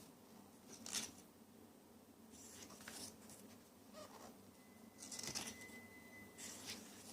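Paper and packaging being handled: soft rustles and brushes in several short bursts, with a faint thin steady tone for about two seconds in the second half.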